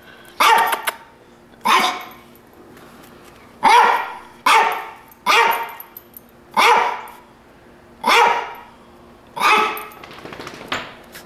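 A dog barking repeatedly, about nine sharp barks spaced roughly a second apart.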